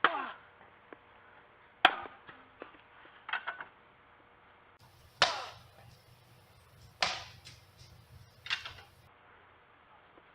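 A series of sharp hits and thuds from backyard wrestling, about six over ten seconds, some with a brief ringing tail.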